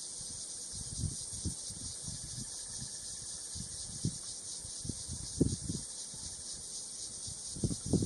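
Steady high-pitched drone of insects calling in the dry grass, with scattered low thumps, the loudest about five and a half seconds in and near the end.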